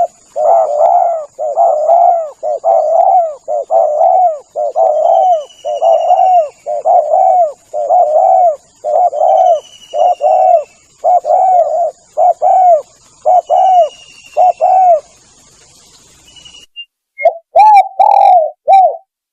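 Spotted dove cooing: a long run of repeated low coo notes, about two a second, that breaks off about 15 s in, with a few more coos near the end. This is a lure call used to draw wild doves.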